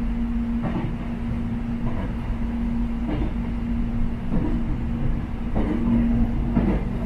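Electric airport train running along the track: a steady rumble with a constant hum, and a wheel clack roughly once a second.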